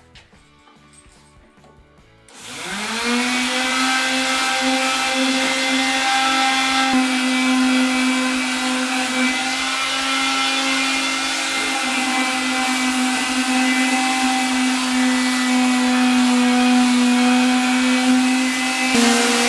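Electric power sander switched on about two seconds in, spinning up quickly and then running with a steady hum over a hiss of sanding.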